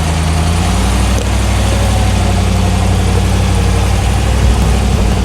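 Off-road truck engine running steadily at low revs; its pitch steps up slightly about a second in.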